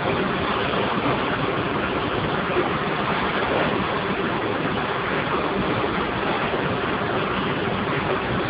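Steam boiler running with a steady, even rushing hiss that holds unchanged throughout.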